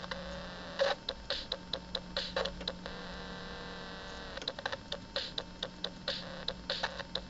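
Circuit-bent toy drum machine glitching: irregular short electronic drum hits and clicks, broken about three seconds in by a steady buzzing tone that lasts about a second and a half, over a constant low electrical hum.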